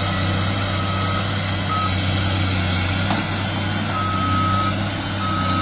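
Excavator engine running steadily with its travel alarm beeping, a high tone that sounds on and off in beeps of uneven length.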